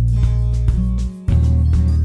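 Instrumental background music with a heavy bass line, breaking off briefly about a second in before carrying on.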